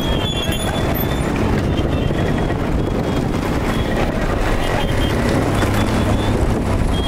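Steady rumble of a vehicle running along the road, with road and wind noise and no clear changes in pace.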